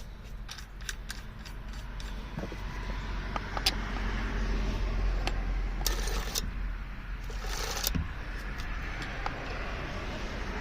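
Light metallic clicking, jingling and scraping as a chainsaw's captive bar nuts are spun with a scrench on the clutch cover of a Husqvarna 572XP.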